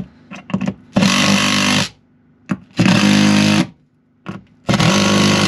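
Cordless drill run three times in bursts of a bit under a second each, working into a wooden support batten, with a few short clicks and knocks between the runs.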